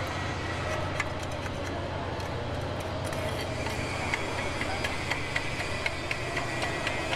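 Stick (SMAW) welding arc on aluminium plate during the first (root) pass of a flat fillet weld: a steady hiss and crackle with irregular sharp pops that come more often in the second half, over a steady low hum.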